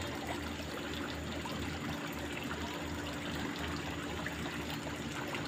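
Small, fast-flowing stream running steadily with a continuous trickling rush of water.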